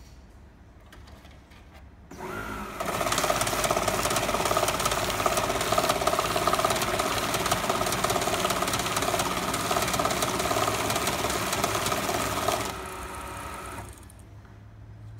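ML-2V two-pocket banknote counting and sorting machine feeding and counting a stack of banknotes: it starts about two seconds in, then gives a steady whir with a fast flutter of notes running through for about ten seconds. Near the end it drops to a lower run-down hum for about a second and stops.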